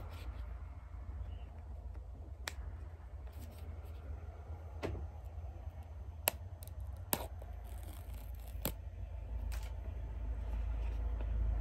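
Paper tear-strip seal being peeled off a cardboard AirPods Pro box: a handful of sharp ticks and a short tearing rasp about eight seconds in, over a steady low hum.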